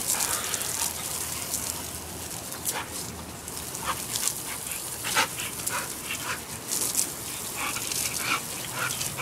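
American bulldog giving short, scattered yips and barks as it bites at the spray from a garden hose nozzle, over the steady hiss of the water jet.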